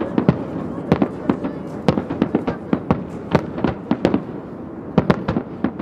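Chrysanthemum fireworks shells bursting in quick, irregular succession: sharp bangs about three a second, each trailing a short echo.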